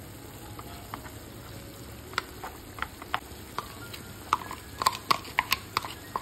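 Minced beef frying in a pan, a steady sizzle as it browns while it is stirred, with sharp clicks that come more often and louder in the second half.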